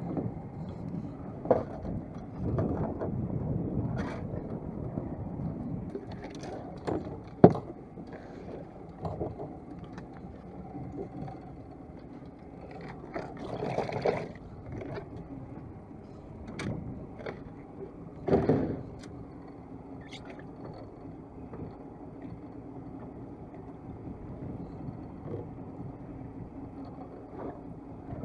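Knocks and scrapes on a small fishing boat, several sharp knocks in the first half, the loudest about seven seconds in, over a steady wash of water and wind.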